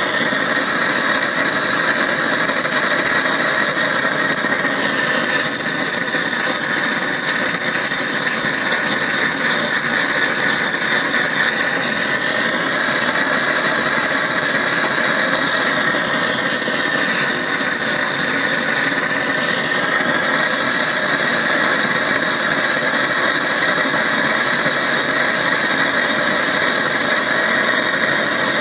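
A hand-held gas torch burning steadily and loudly. Its flame is played on a freshly thrown clay pot on the potter's wheel to dry off the surface sheen.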